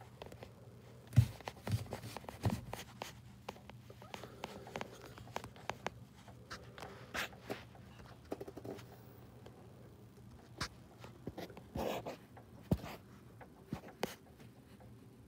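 Scattered light clicks, taps and scrapes, with a few louder knocks about a second in and again near the end, over a faint steady low hum.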